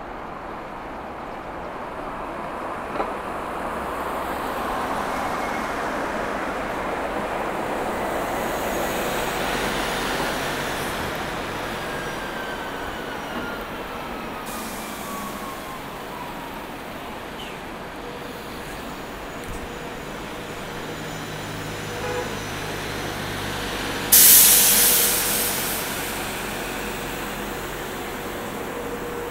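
Road traffic going past on a city street, swelling to its loudest about ten seconds in and then easing off. About 24 seconds in, a short, loud hiss breaks out and dies away.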